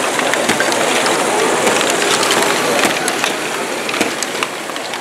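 LEGO ball-moving machines running: motor-driven gears and chain lifts ticking, with small plastic balls clicking and clattering through the modules over a steady background din.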